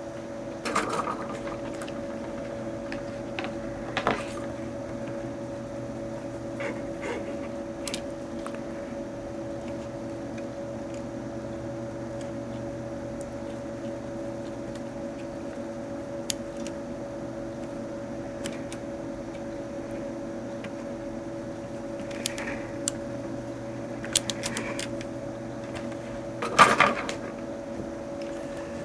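Desoldering work on a keyboard circuit board: scattered short clicks and knocks of tools against the board, the loudest a brief clatter near the end, over a steady mechanical hum.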